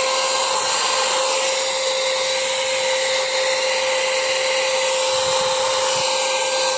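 Handheld car vacuum cleaner running off the car battery: a steady high motor whine over the rush of air.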